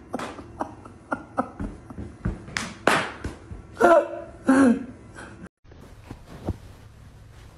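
Crinkly plastic treat bag rustling and crackling as a cat carries it in its mouth and pushes it against its food bowls. Two short voice-like sounds come a little after the middle. The sound cuts off abruptly near the end, leaving only faint low background sound.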